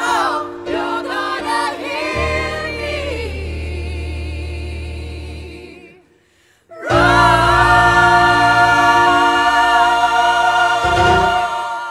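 Mixed a cappella choir of men and women singing, with a low bass note held under the upper voices. The singing fades to a brief silence about six seconds in, then the choir comes back with one loud, long held chord that dies away near the end.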